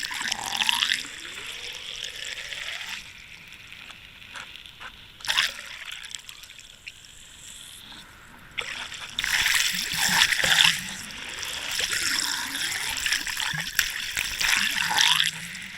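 Sea water splashing and sloshing, louder for a moment about five seconds in and again for a couple of seconds past the middle.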